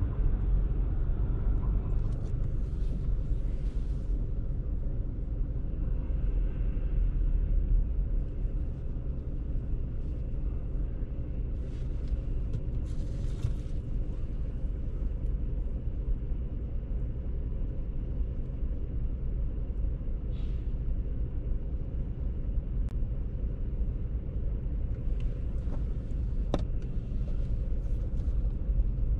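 Steady low rumble of a car idling while stopped, heard from inside, with the hiss of passing traffic swelling a few times and one sharp click near the end.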